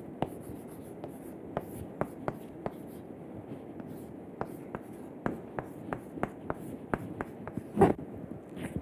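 Chalk writing on a chalkboard: irregular sharp taps and scratches, about two or three a second, as symbols are written, with one brief louder sound near the end.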